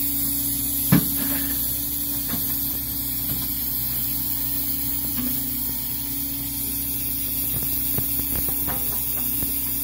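Hydraulic excavator-style bucket machine running steadily on a railroad bridge deck, engine and hydraulics giving a steady hum and hiss while the bucket works an old deck timber out. A single sharp knock about a second in, with a few lighter clicks near the end.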